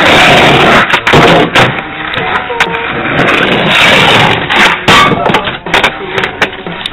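Skateboard wheels rolling loudly on concrete close by, with several sharp clacks from the board, over background music.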